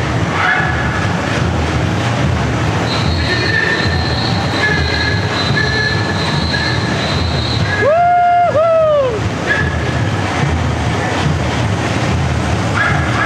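Samba street band playing: a dense, steady drum beat with long high whistle-like tones held over it, and about eight seconds in two loud pitched swoops, each rising then falling.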